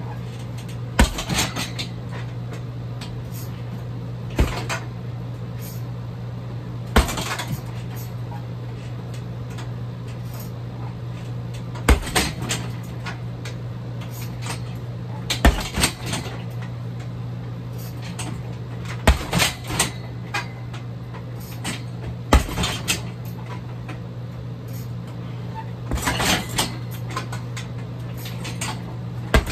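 Kicks and strikes landing on a heavy bag: a dozen or so sharp thuds a few seconds apart, some in quick clusters of two or three. A steady low hum runs underneath.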